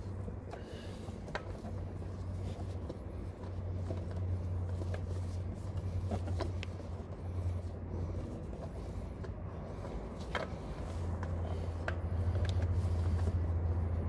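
A few light clicks and knocks from hands working a new spin-on oil filter on by hand, over a low hum that rises and falls.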